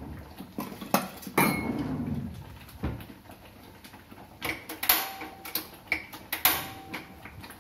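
Metal kitchen utensils clinking and knocking several times, spread out: a small seasoning ladle and pans being handled at a gas stove.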